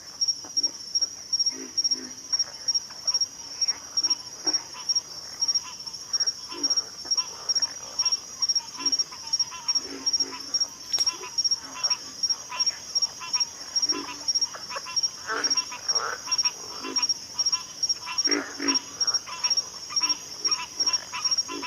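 Pig frogs grunting in short, irregular low calls over a steady high-pitched insect chirp that pulses about three times a second.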